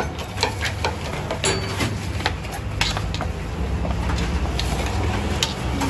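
Kitchen clatter at a kebab counter: irregular clicks and knocks of utensils and food handling, over a steady low hum.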